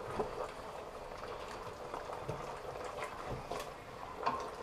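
Pasta sauce simmering and bubbling in a steel pot as it is stirred with a wooden spoon, with a few soft knocks of the spoon against the pot.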